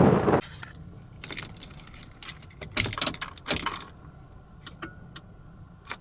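A bunch of keys jangling, with a few sharp metallic clicks, loudest a few seconds in. Just before it, a loud rushing noise cuts off suddenly.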